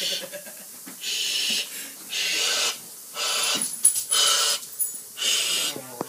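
A person voicing a washing machine's wash cycle by mouth: rhythmic breathy swishing sounds, about one a second.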